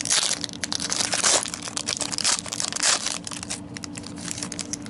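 Foil wrapper of a trading-card pack torn open and crinkled by hand, with dense crackling for about three seconds that thins to lighter crinkles near the end.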